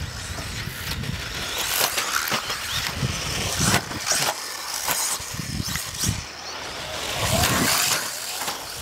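Radio-controlled off-road buggy running on a dirt track, its motor revving up and down as it drives past.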